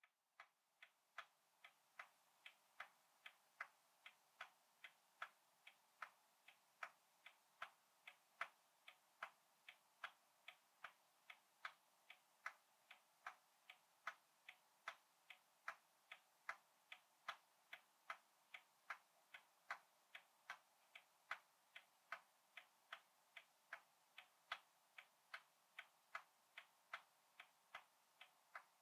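Ticking of a roughly 100-year-old clock: a faint, even tick-tock at about two and a half ticks a second.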